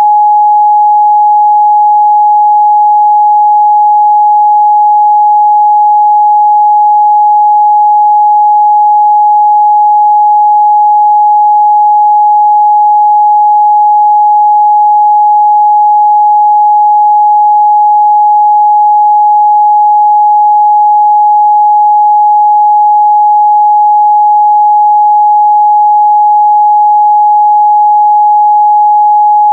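Steady 838 Hz sine-wave test tone, one pure unchanging pitch held at a constant loud level.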